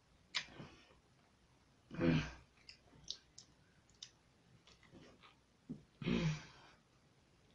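A person's two loud, breathy, voiced sighs or groans at the sourness of the lemon in his mouth, about two seconds in and again about six seconds in, with a few small mouth clicks before and between them.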